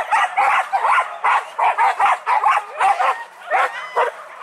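Hunting dogs on a wild boar hunt barking in quick succession, about three barks a second with yelping rises in pitch, easing off a little near the end.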